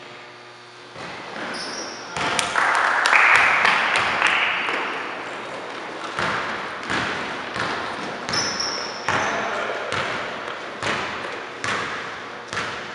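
Basketball being dribbled on a hardwood gym floor, bouncing about every half second or so through the second half. Before that, a few seconds in, comes a loud burst of cheering in the hall as a free throw goes in.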